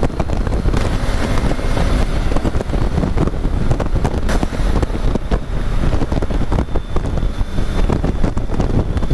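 Heavy wind buffeting on the microphone of a Triumph Tiger three-cylinder motorcycle cruising at highway speed in sixth gear, with the engine running steadily underneath.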